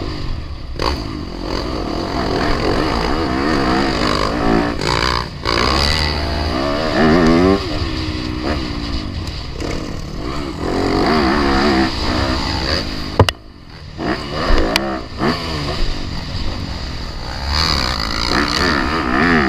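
Four-stroke motocross dirt bike being ridden hard around a track, its engine revving up and falling off again and again through the corners and jumps. A sharp knock comes about thirteen seconds in, and the engine briefly drops away after it.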